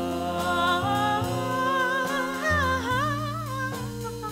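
Small live band of piano, double bass, drums and saxophone playing a slow ballad, with a wordless sung line that slides and wavers over the held accompaniment between sung phrases.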